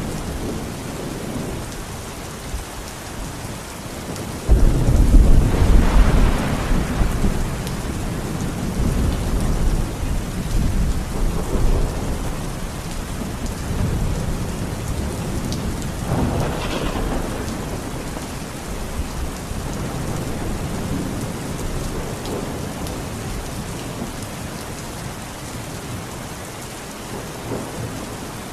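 Steady rain falling, with a sudden loud roll of thunder about four and a half seconds in that rumbles away over several seconds, and a second, weaker roll of thunder a little past the middle.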